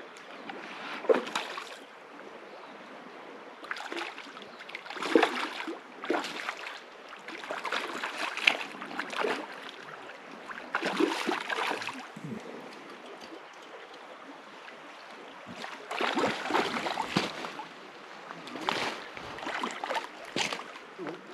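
River water splashing and sloshing in irregular bursts over the steady rush of a flowing stream.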